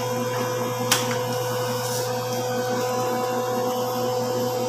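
Steady machine hum made of a low drone and a few held tones, with a single sharp click about a second in.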